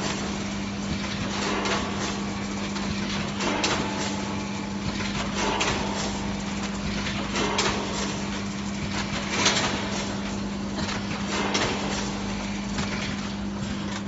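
Honetop HTL-420C vertical form-fill-seal snack packing machine running: a steady hum under mechanical clatter, with a sharp knock about every two seconds as it cycles through each bag.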